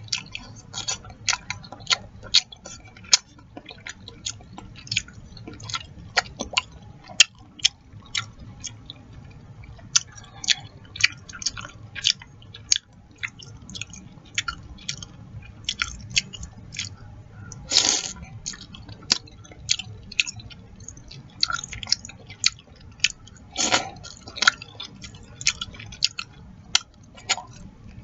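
Close-miked eating of chicken noodle soup: steady wet chewing and lip smacks, two or three sharp clicks a second, with two longer slurps, one past the middle and one about two-thirds through.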